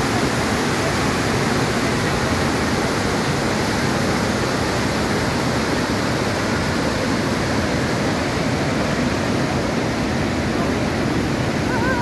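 Bad Gastein waterfall, white water crashing down a steep rocky gorge: a loud, steady, unbroken rush.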